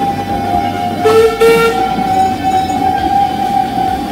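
Narrow-gauge train running along the track, with a short whistle blast about a second in, lasting under a second, over a steady high tone.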